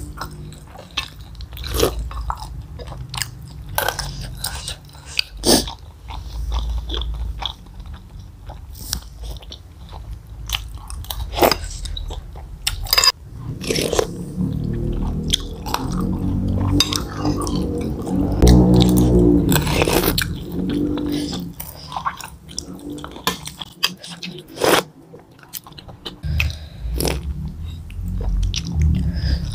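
Close-miked eating of bakso aci with noodles in broth: chewing and slurping, with many short sharp clicks of metal spoons against a ceramic bowl. The chewing and slurping are loudest and densest from about 14 to 21 seconds in.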